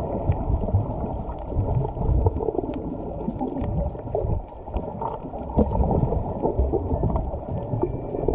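Muffled underwater water noise picked up by a camera held underwater: a dull churning rumble with gurgling, and faint scattered clicks.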